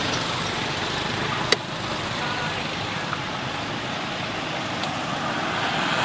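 Steady road traffic noise from motorbikes and cars passing, with one sharp click about a second and a half in.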